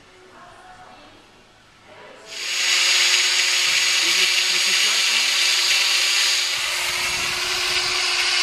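Handheld angle grinder starting up about two seconds in and then grinding or cutting steadily: a loud, even, high-pitched whine with a gritty hiss.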